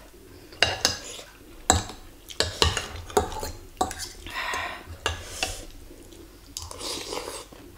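A metal fork and spoon clinking and scraping against a white ceramic bowl as they cut into bakso meatballs and lift noodles. There are a string of sharp clinks over the first five seconds or so, then softer sounds near the end.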